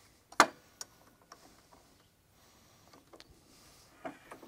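Clamps and a wooden workpiece being handled and set on a table saw: one sharp knock about half a second in, then scattered lighter clicks and taps, with a few quick ones near the end.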